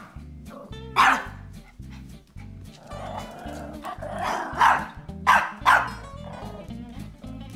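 Tiny Pomeranian puppy barking: four sharp barks, one about a second in and three in quick succession near the middle, over background music with a steady beat.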